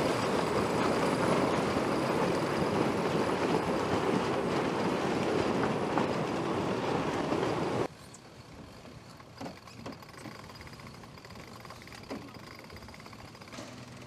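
Steady rushing noise of wind and water on the deck of a racing sailboat under way. It drops suddenly to a much quieter sea-and-wind background, with a few faint knocks and clicks from winch work.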